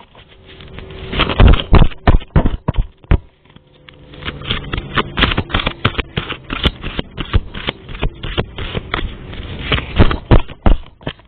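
A deck of reading cards being shuffled by hand: a quick, uneven run of papery clicks and riffles, thicker and more continuous from about three and a half seconds in.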